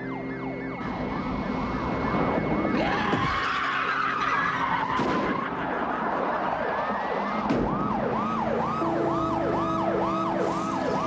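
Police car sirens wailing and yelping over a high-speed car chase, with rough tyre and engine noise in the middle and a sharp bang about seven and a half seconds in. Near the end one siren settles into a steady up-and-down wail, about one and a half cycles a second.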